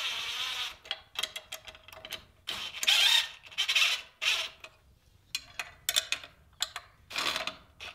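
Cordless driver run in short bursts, about five, tightening the bolts that mount a hydraulic diverter valve on a tractor loader, with small sharp clicks between the bursts.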